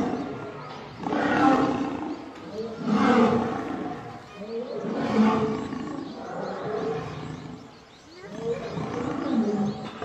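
Lions growling and snarling in a scuffle, a male lion pinned on his back by lionesses. The growls come in repeated loud outbursts about every two seconds and grow weaker in the second half.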